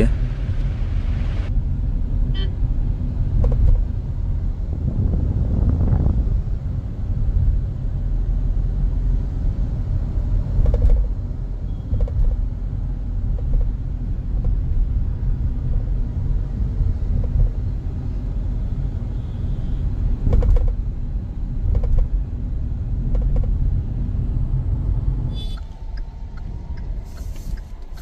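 Cabin noise of a Hyundai i20 on the move: a steady low road rumble, with short, sharp rattling clicks every few seconds from a loose part in the passenger-side dashboard. The rumble drops away near the end.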